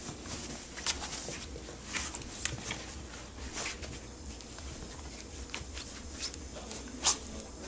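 Scattered taps, scrapes and rustles from a puppy in a plastic cone collar moving about on cloth and carpet, with one sharper tap near the end.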